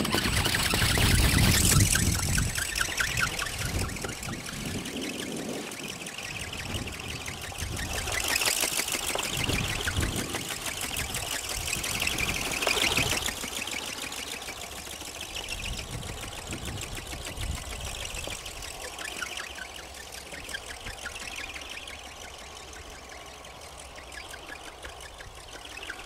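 Rapid, even, buzzing flutter of a small electric RC ornithopter's flapping wings and geared drive, under strong wind buffeting the microphone. The wind is heaviest near the start and again around the middle.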